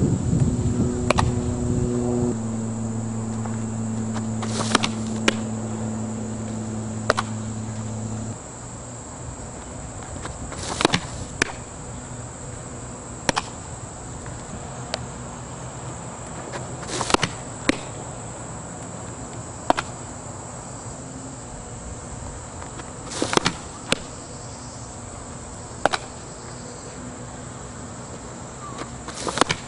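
A softball pitching session: the ball pops sharply into a leather glove every few seconds, sometimes two pops close together, over a steady high buzz of summer insects. A low steady hum runs for the first eight seconds or so and cuts off suddenly.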